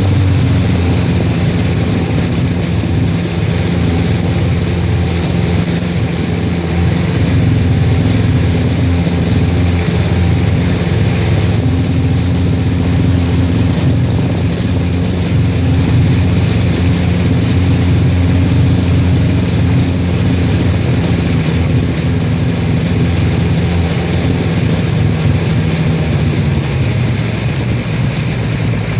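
Sea-Doo personal watercraft's engine and jet drive running steadily at cruising speed, with water spraying off the hull. The engine's pitch drops a little near the end.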